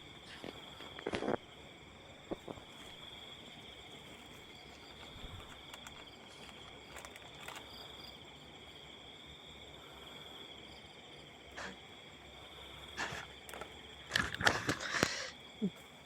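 Night insect chorus, crickets trilling steadily in a high register, with a few scattered rustles and knocks near the start and a louder cluster of rustling and knocking near the end.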